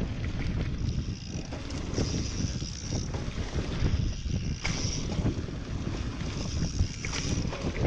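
Wind buffeting the microphone of a handlebar-mounted GoPro as a Canyon Exceed mountain bike rides fast down a dirt forest trail, with a steady rumble of tyres on the ground and the bike rattling over bumps.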